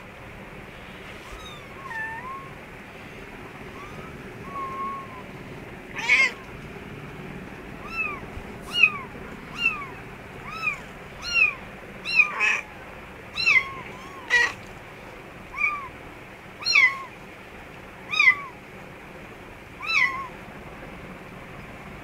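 Kitten mewing repeatedly with short, high, arched calls. There are a few scattered calls at first, then about one a second from around eight seconds in until near the end.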